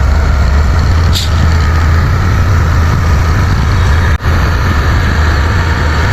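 Bulldozer's heavy diesel engine running steadily with a deep hum, with a short hiss about a second in and a momentary break in the sound about four seconds in.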